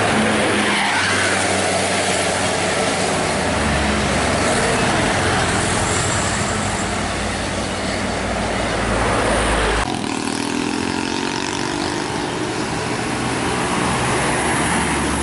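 Diesel buses and trucks passing close by on an uphill road, their engines running under tyre and road noise. About ten seconds in, the sound cuts to a vehicle engine whose pitch climbs steadily as it pulls up the hill.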